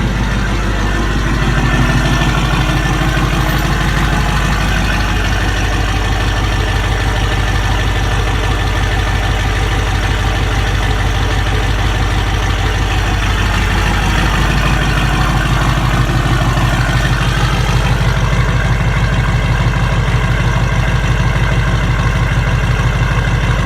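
Diesel engine idling steadily, carrying the unexplained noise its owner calls a mystery diesel sound. Its low note shifts slightly about a second in, around five seconds and around thirteen seconds.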